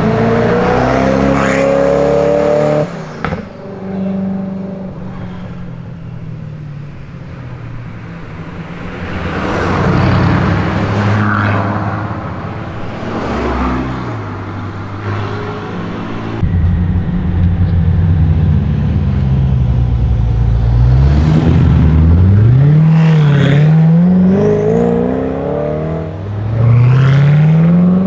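Several supercar engines, one after another. First a Koenigsegg Agera RS twin-turbo V8 pulls away with a rising note for about three seconds. Then come quieter passes, and from about halfway a loud engine revving up and down in repeated swoops towards the end.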